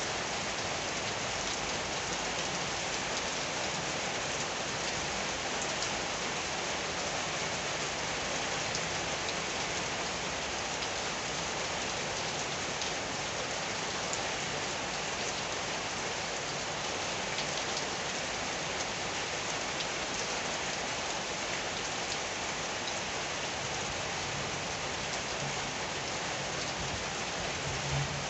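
Steady heavy rain falling: a dense, even hiss made up of many small drop ticks.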